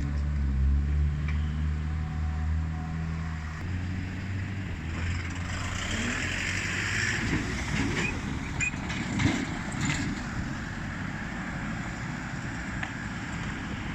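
Road traffic at a railway level crossing: a vehicle engine idles with a low, steady hum that stops about three and a half seconds in, then vehicles drive past with tyre noise, with a few light knocks near the middle.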